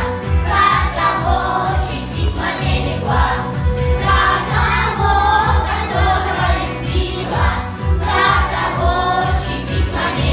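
Children's and women's choir singing a patriotic song over a backing track with a steady beat.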